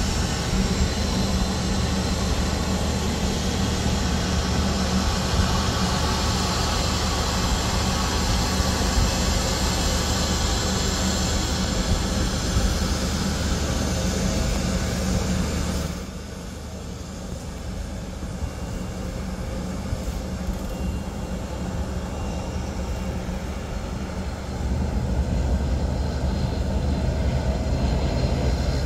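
Bombardier CRJ900 regional jet's rear-mounted turbofans running at taxi power close by: a steady whine over a low rumble. The sound drops suddenly a little past halfway and swells back near the end.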